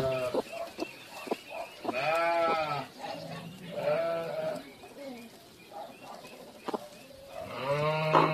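A few drawn-out, bleat-like animal cries, each under a second, rising then falling in pitch, with the loudest starting near the end.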